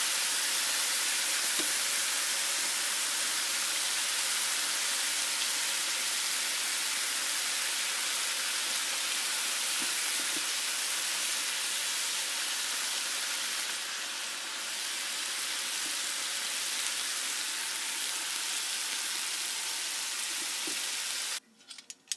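Strips of bacon sizzling steadily in their rendering fat on a flat stovetop griddle, early in the cooking. The sizzle cuts off suddenly near the end.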